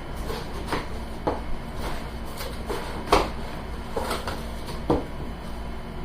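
A handful of separate light knocks and clatters from items in an opened box being handled and set down. The loudest comes about three seconds in.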